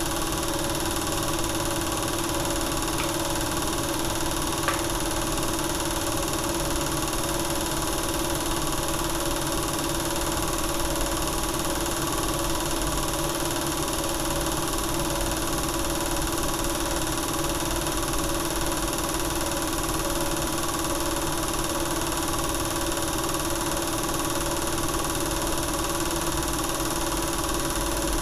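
Film projector running: a steady mechanical whir and hum that does not change, with one small click about five seconds in.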